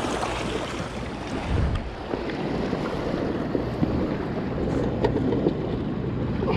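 Wind buffeting the microphone over the steady wash of the sea at the shoreline.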